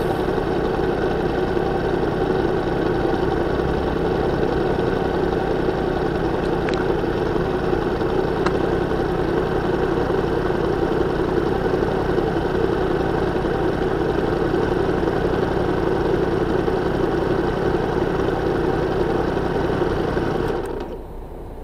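Vehicle engine idling at a standstill in traffic, a steady running noise that drops off sharply about a second before the end.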